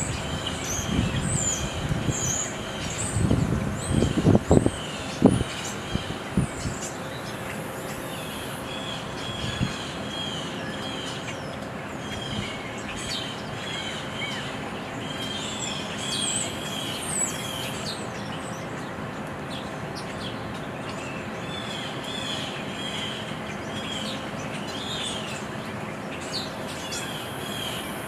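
Small birds chirping over and over in short, quick notes above a steady background hiss. Bursts of low rumble come in the first six seconds, loudest about four to five seconds in.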